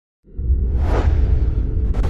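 Cinematic intro sound effect: a deep rumble with a whoosh that swells and fades, ending in a sharp hit.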